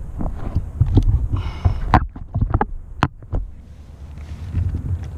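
Low rumble of wind and water noise on the microphone aboard a kayak, with several sharp knocks and taps between about two and three and a half seconds in.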